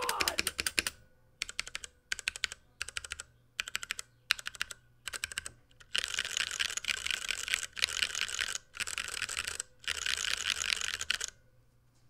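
Typing sound test on a 60% mechanical keyboard with Cherry MX Brown tactile switches in an acrylic case. The first few seconds are short groups of keystrokes with gaps between them; then fast continuous typing comes in four runs of a second or so each, stopping just before the end.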